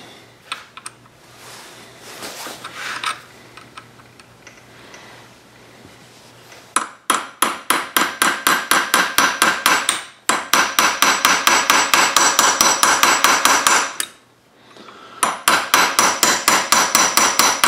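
A small hammer tapping a punch in quick, even strokes, about six a second, to drift the steel rear sight of a Smith & Wesson Shield 9mm out of its dovetail. The tapping starts about seven seconds in after light handling noise and comes in three runs with short pauses between them.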